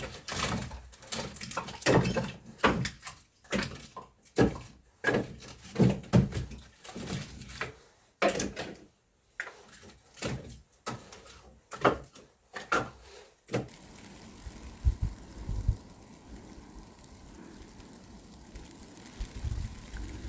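An irregular series of knocks and scraping strokes, about one or two a second, that stops about two-thirds of the way through. After that comes a steady low hiss with a few soft thumps.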